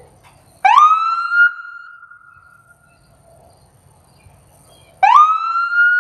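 Siren giving two short rising wails about four seconds apart. Each one sweeps up quickly, holds a steady high tone and then fades away.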